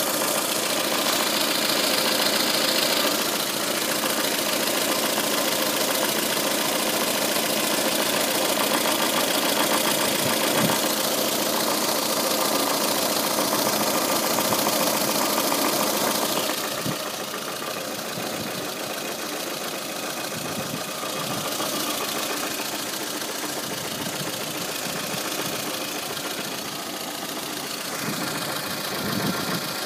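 VAZ 2114 engine idling with a rapid ticking knock from the timing-belt cover area, the sign of axial play in the camshaft. About halfway through the sound drops a little and turns duller.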